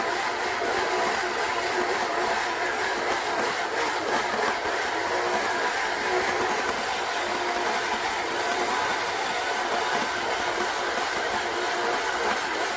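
Electric stand mixer running steadily, its flat beater churning thick cookie dough in a stainless steel bowl.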